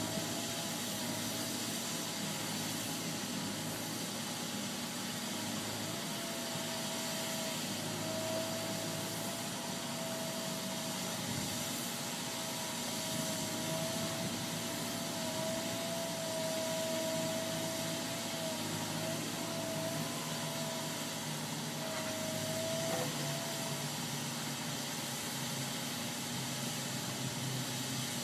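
Wheeled walking excavator's engine running steadily while the machine works, with a thin whine that wavers slightly in pitch and stops near the end.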